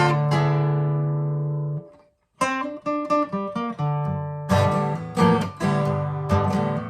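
Guitar playing an instrumental passage: a strummed chord rings out and is damped about two seconds in, then after a brief pause single notes are picked, and rhythmic strumming resumes.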